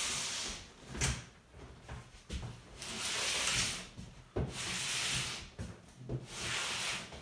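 Tall cardboard digital-piano box being scraped and shuffled across the floor: several rasping scrapes about a second long each, with a couple of sharp knocks as it is set down on its corners.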